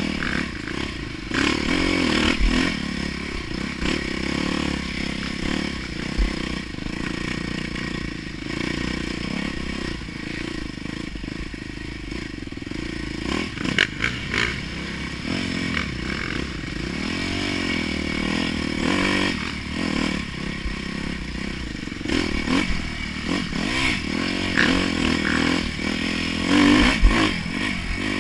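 Dirt bike engine being ridden on a trail, revving up and down with the throttle, with occasional knocks and rattles from the bike over rough ground.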